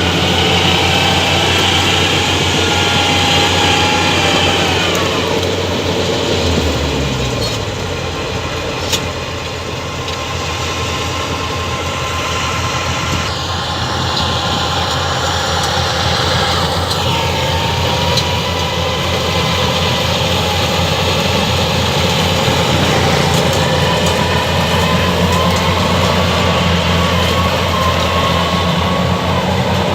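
Rice combine harvester running steadily at work, its engine and threshing machinery making a loud continuous mechanical drone with a higher whine on top. The engine speed dips about a quarter of the way in, then holds steady.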